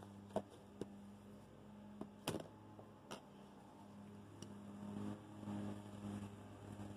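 A few light clicks of a metal spoon and fork against a glass dish. Then, from about five seconds in, the soft rustle of a gloved hand mixing dry gram flour and rice flour, over a steady low hum.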